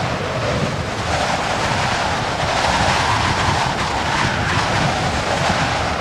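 Heavy wind blowing steadily, a loud, rushing gust noise with a low rumble underneath that swells a little in the middle.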